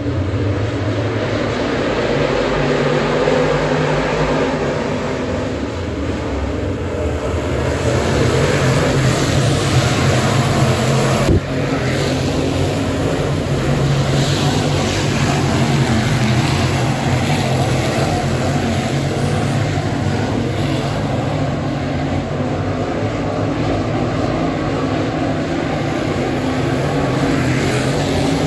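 A pack of dirt late model race cars at speed on a dirt oval, their V8 engines running together in a loud, continuous drone that swells as the cars pass.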